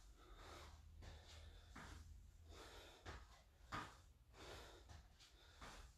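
Faint, heavy breathing of a man straining through lunges, a string of short breaths in and out.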